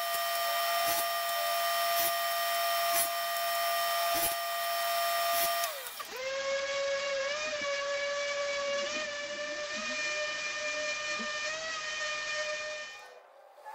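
Table saw running with a steady whine and a sharp click about once a second as walnut strips are cut into short pieces. About six seconds in it gives way to a random orbital sander with a vacuum hose attached, whining with a slightly wavering pitch as it sands walnut strips, then stopping near the end.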